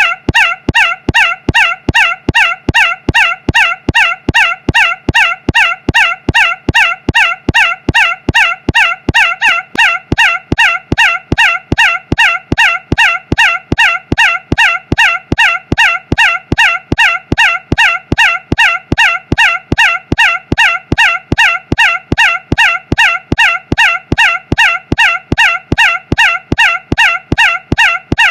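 One short, bending-pitch squawk-like sound repeated mechanically about three times a second, each repeat identical, as an endless loop.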